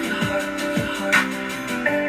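Background music: an instrumental stretch of a hip hop song, with held notes, deep kick drums that drop in pitch about twice a second, and one sharp drum hit just after a second in.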